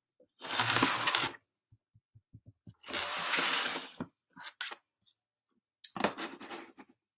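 Handling of an iPad in its plastic Osmo stand: two rustling scrapes of about a second each. Between them comes a quick run of about six light taps as the six-digit passcode is keyed in on the touchscreen.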